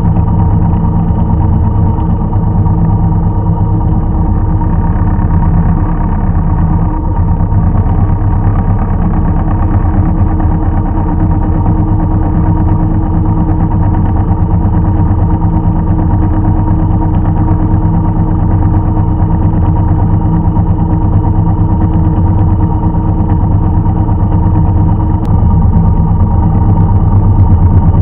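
Engine of old farm machinery running steadily at an even speed, a little louder near the end.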